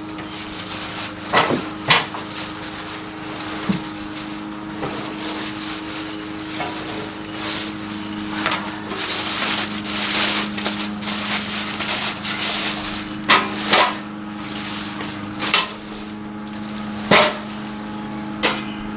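Metal grill parts knocking and clanking as they are lifted out of their packing, a handful of sharp knocks with rustling and scraping between them. A steady low hum runs underneath and stops near the end.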